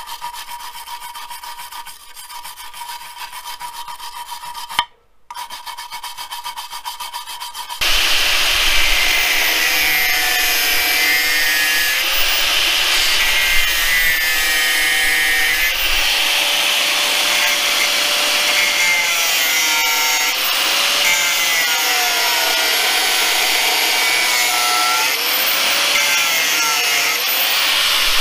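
A stiff wire brush scrubs rust from a steel axle casing by hand. About eight seconds in, a much louder electric angle grinder takes over, running against a steel plate, its whine wavering up and down in pitch as the load on the disc changes.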